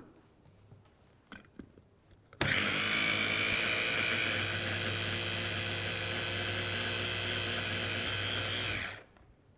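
Electric kitchen blender running steadily on a thick sauce mix, grinding it smooth. It starts suddenly about two and a half seconds in, holds an even pitch for about six seconds, and cuts off near the end.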